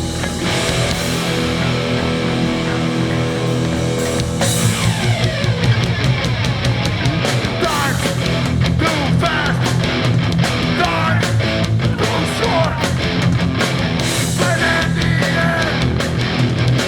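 Hardcore punk band playing live at full volume: distorted electric guitars, bass and drums, with a crash about four seconds in and denser drumming after it.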